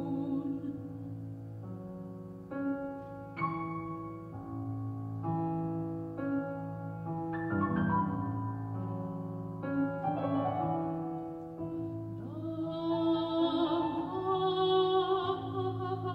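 Soprano and piano performing an art song: the piano plays a slow succession of chords, and the soprano's voice, with a wide vibrato, comes in more strongly in the second half and is loudest near the end.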